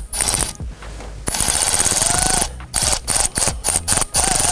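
Milwaukee Fuel cordless electric ratchet spinning a 10 mm socket to back off a car battery's terminal nut, with a high motor whine. It runs in one longer burst about a second in, then in several short trigger pulses.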